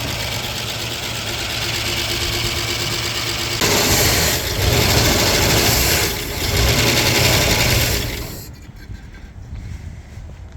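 The 1958 Oldsmobile 88's V8 engine runs on a temporary fuel feed just after its first restart in years. It gets louder about a third of the way in, with two brief dips, then drops off sharply near the end.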